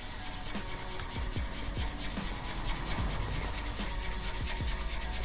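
Steel wool scrubbed back and forth along a weathered exhaust pipe in repeated strokes, polishing the dull surface down toward bare silver metal.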